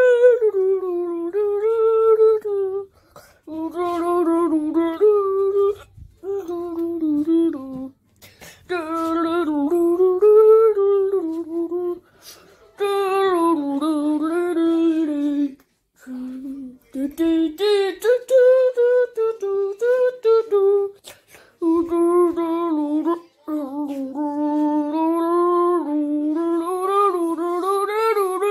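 A high voice humming a wordless tune, in wavering phrases of two to three seconds with short pauses between them.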